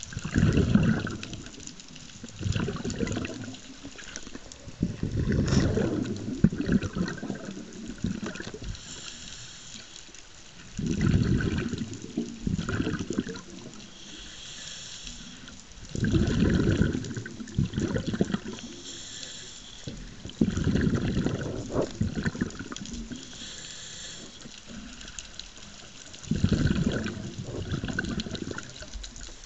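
Scuba breathing heard underwater: a diver's exhaled bubbles rumble past the camera in bursts of a second or two, about every five seconds, with a fainter regulator hiss in between.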